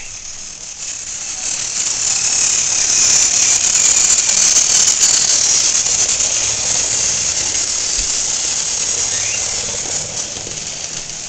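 Battery-powered Thomas & Friends toy engine running along plastic track: a steady high-pitched whirring of its motor and gears that grows louder over the first few seconds and then slowly eases off.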